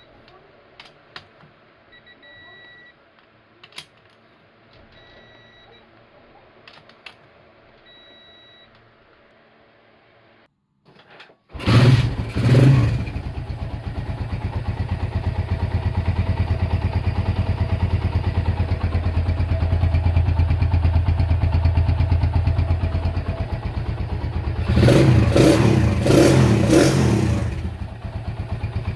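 Faint beeps and clicks, then about a third of the way in a Honda Tiger single-cylinder four-stroke engine starts and is revved. It settles into steady running and is blipped several times near the end.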